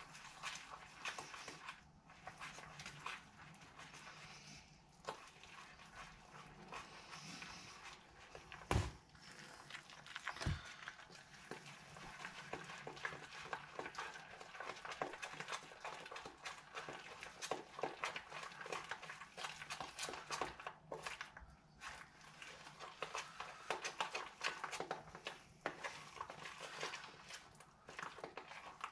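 Thick overnight-oats mixture (oats, protein powder, milk, chia seeds, yogurt) being stirred in a plastic tub: a continuous run of wet scraping and small clicks of the utensil against the tub, with two louder knocks, about nine and ten and a half seconds in.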